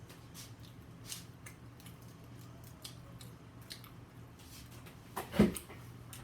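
Close-up chewing of crunchy food: irregular small crackles and crunches, with one louder crunch or thump about five seconds in.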